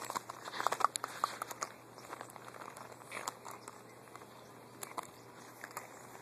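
Empty dry dog food bag crinkling and rustling as puppies paw, lick and chew at it, in a quick run of crackles during the first second and a half, then a few scattered ones.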